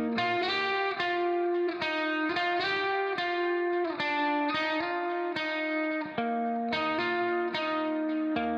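Background music: a run of plucked, ringing notes in a steady rhythm.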